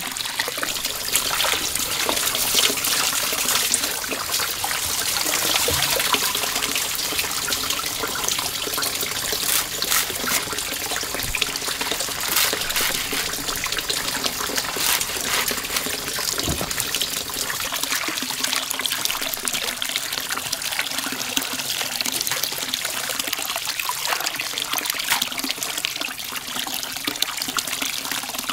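Running water trickling and splashing steadily, a dense hiss of small crackles.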